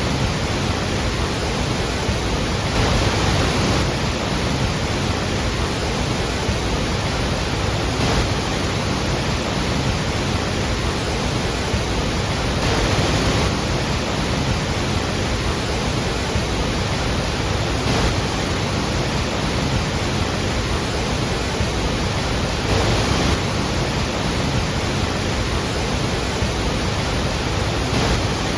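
Iguazu Falls' great volume of falling water making a steady, dense rush, swelling slightly every few seconds.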